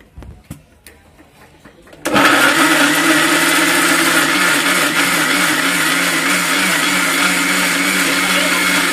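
Electric mixer grinder (Indian mixie) with a stainless steel jar, starting suddenly about two seconds in and running steadily at full speed while grinding onions into a wet paste. Before it starts, a few light clicks as the jar and lid are set in place.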